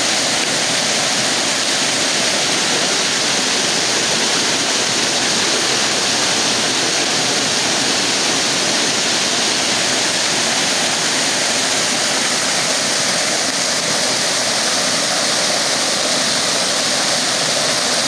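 Waterfall: water pouring over a rock ledge and splashing down, a steady loud rush.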